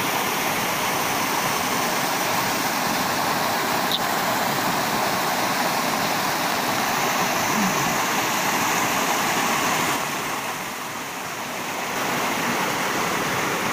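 Small waterfall pouring over rocks into a shallow pool: steady rushing, splashing water, briefly softer about ten seconds in.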